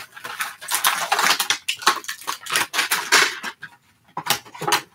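Toy packaging being handled and rummaged through, a dense crinkling and rustling as the plastic toy pieces are pulled out of the box, followed by two short sharp clacks a little after four seconds.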